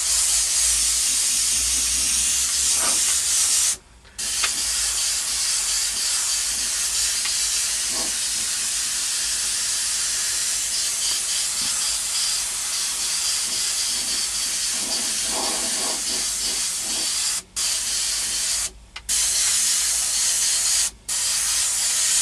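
Airbrush spraying paint: a steady hiss of air that stops briefly about four seconds in and a few more times near the end.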